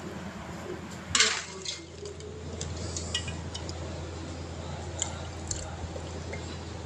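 Food preparation with liquid and kitchenware: a short splash about a second in, then light clinks of utensils against dishes over a steady low hum.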